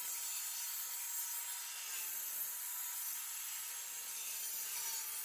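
Sliding compound miter saw running and cutting aluminum extrusion: a loud, even hiss of the blade through the metal over a steady high motor whine, both stopping at the very end.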